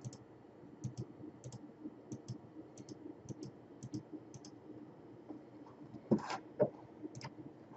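Computer mouse clicking repeatedly, each click a quick press-and-release double tick, roughly every half second. Two louder bumps come about six seconds in.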